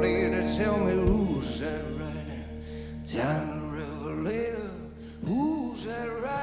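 Gospel-blues music: a singer's wordless vocal lines slide and bend in phrases over held instrumental chords.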